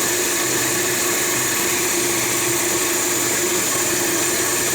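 An 83-year-old Zach Parkes coffee grinder running steadily as it grinds coffee beans fine: a constant motor hum with a steady high whine over it.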